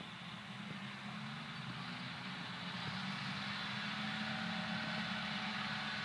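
Engines of sugarcane harvesting machinery running with a steady hum, growing gradually louder.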